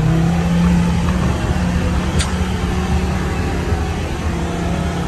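Off-road 4x4's engine running steadily. A single short click comes about two seconds in.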